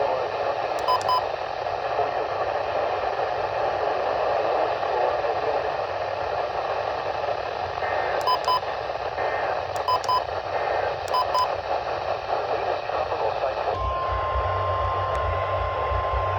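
Radio static hiss with a few short paired beeps, then a steady high alert tone starts near the end, with a low buzz under it. The tone is typical of the 1050 Hz warning alarm that NOAA Weather Radio sounds ahead of a warning message.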